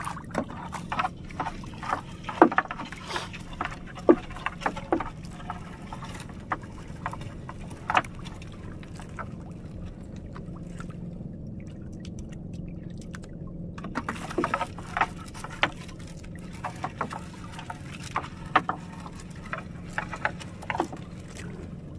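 Fishing net being hauled by hand over the side of a small wooden outrigger boat: irregular knocks and clicks as the net comes over the gunwale, with water dripping and splashing, over a steady low hum. The handling noise is busy in the first few seconds and again from about halfway on, with a calmer stretch between.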